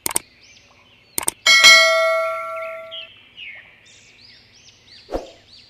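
Subscribe-button sound effect: two quick mouse clicks, then a bright bell ding about a second and a half in that rings out and fades over about a second and a half. Faint bird-like chirps run underneath, and a soft thump comes near the end.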